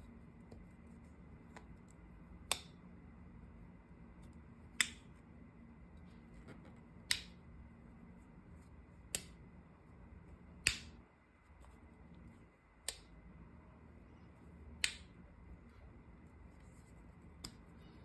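Victorinox Swiss Champ Swiss Army knife's folding blades and tools being worked by hand, each snapping into place against its spring with a sharp metallic click. There are seven loud clicks about two seconds apart and a fainter one near the end.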